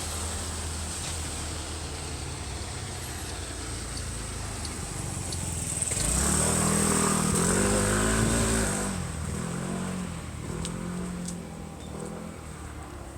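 Electric train on the JR Yokosuka Line running past, a steady rumble with a motor whine that bends up and down in pitch. It is loudest a little past the middle, then fades away.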